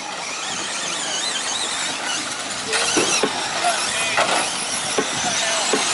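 Several radio-controlled short course trucks racing on dirt: high-pitched motor whines rising and falling in pitch as they speed up and slow down, with a few sharp clicks near the middle and near the end.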